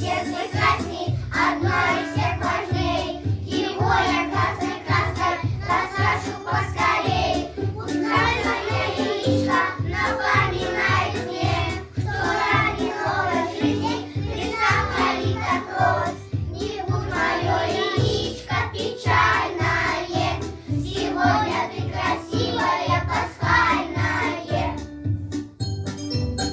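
A children's song: singing over a backing track with a steady beat.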